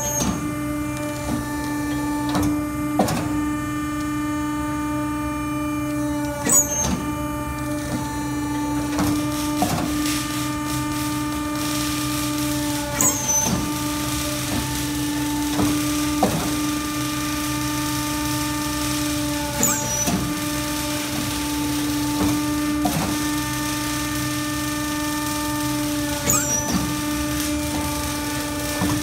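A small briquetting press runs with a steady machine hum. A knock comes about every three seconds as each stroke presses sawdust into a briquette, and a short high squeak comes with every second stroke.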